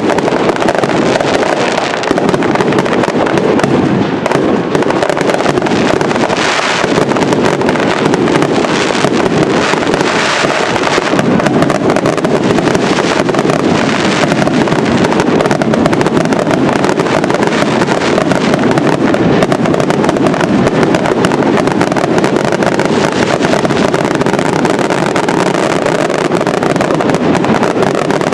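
Fireworks finale barrage: a loud, continuous wall of overlapping firework explosions, with several sharper bursts standing out in the first half.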